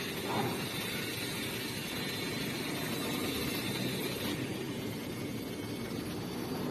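Steady rushing background noise with no distinct knocks or voices, the kind of mix that a running vehicle and wind make.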